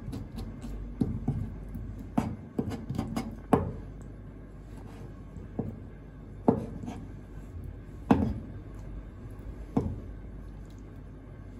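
Kitchen knife knocking and scraping on a plastic cutting board as red clam (ark shell) meat is trimmed: a quick run of taps between about two and three and a half seconds in, then single knocks every second or two.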